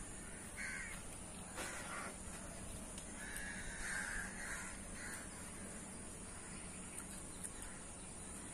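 Crow cawing several times: short harsh calls about half a second and a second and a half in, then a run of calls between three and a half and five seconds in, over a faint steady hiss.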